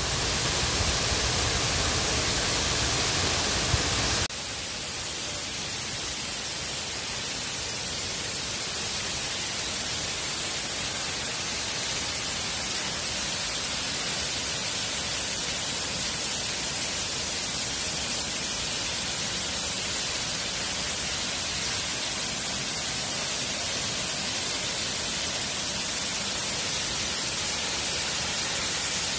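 Waterfall rushing over rock, a steady even hiss of falling water. About four seconds in it steps down to a slightly quieter, equally steady rush.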